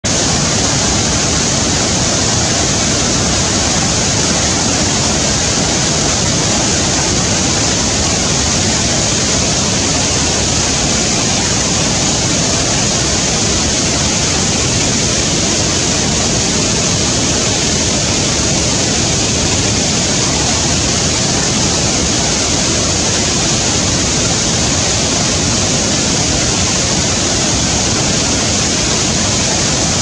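Waterfall rushing in a steady, unbroken roar, with no bird calls standing out.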